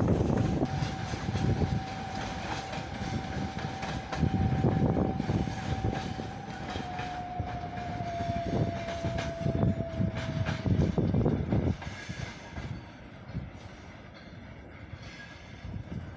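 Electric freight train passing, its wagons rumbling unevenly, with a long steady high tone that dips slightly in pitch past the middle and stops about two-thirds of the way through. The rumble fades near the end.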